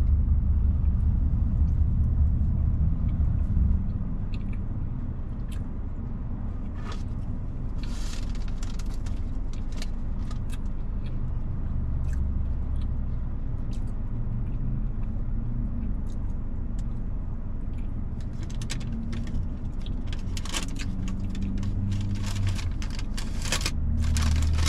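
A car's engine idling, heard inside the cabin as a low, steady rumble. Scattered small clicks and rustles from the cake being handled and eaten sit over it and grow busier near the end.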